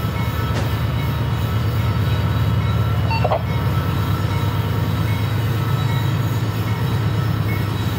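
Union Pacific diesel locomotive engines working hard at a crawl, lugging a heavy loaded coal train up a steep grade with barely enough horsepower: a steady deep engine rumble that grows slightly louder about two seconds in.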